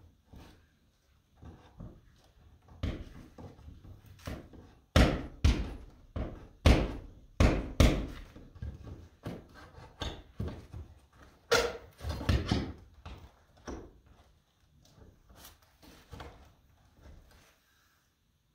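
Hand tool, most likely a hammer, striking wooden roof boards overhead: about twenty sharp, irregular knocks, heaviest through the middle and thinning out near the end, as the man works at freeing a roof panel that the asphalt shingles hold in place.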